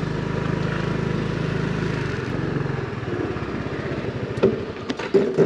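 Motorbike engine running at low speed, dropping into a slower, pulsing idle about two seconds in, with a couple of brief louder sounds near the end.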